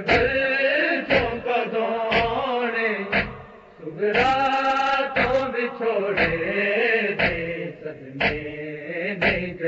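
A group of men chanting a Punjabi noha (a Shia mourning lament) in unison. Sharp strikes land about once a second, keeping the beat of matam, hands beating on the chest.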